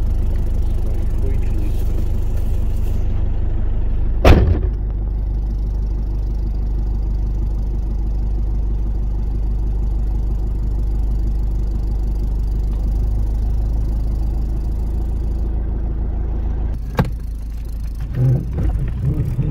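Toyota Hilux engine idling steadily, heard from inside the cab, with a single loud thump about four seconds in.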